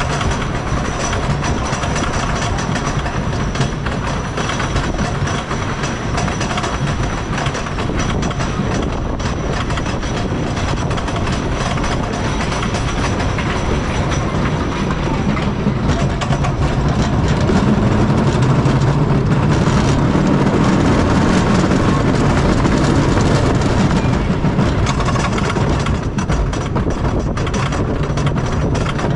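Knoebels Twister wooden roller coaster train rattling and rumbling along its wooden track through the timber structure. Near the end it climbs a lift hill, with a low steady hum from the lift.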